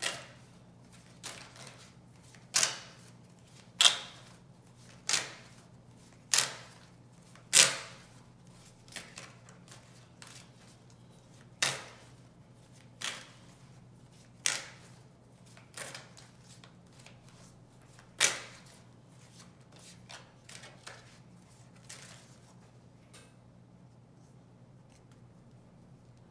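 Tarot deck being shuffled by hand: a string of sharp card slaps about once every second or so, the loudest in the first eight seconds, dying away after about 22 seconds.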